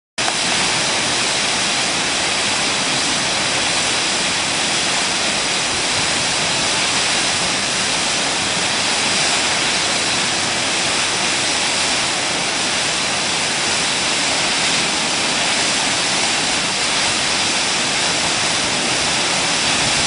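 Havasu Falls, a single tall stream plunging into a pool: a steady, unbroken rush of falling water.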